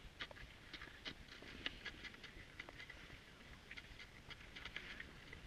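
Faint, irregular scraping and crunching of cross-country skis and poles on snow, several short strokes a second.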